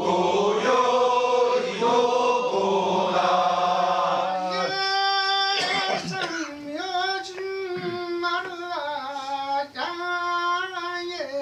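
Kiyari, the Japanese festival work chant, sung in call and response. A group of voices chants together for the first few seconds; then, a little before halfway, a single lead voice takes over with long held notes that waver and bend in pitch.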